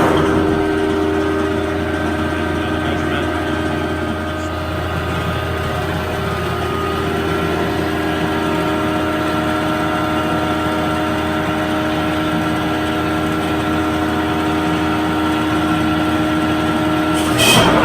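A machine running steadily, giving a constant hum with several steady whining tones that hold unchanged, and a short noisy burst near the end.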